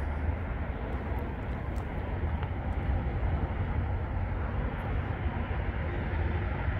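Steady low outdoor rumble, a constant noise heaviest in the bass, with no single event standing out.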